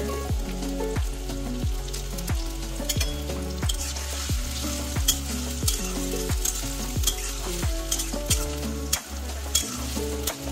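Sliced onions sizzling in hot oil in a metal kadai, stirred and scraped with a metal spatula, with scattered sharp clicks. Background music with a steady beat and deep bass plays throughout.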